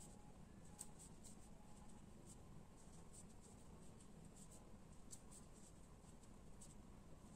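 Very faint, irregular soft ticks of a crochet hook working yarn into single crochet stitches, a few a second.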